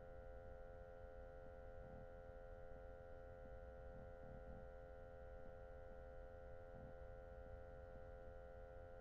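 Near silence with a faint, steady electrical hum made of several constant tones.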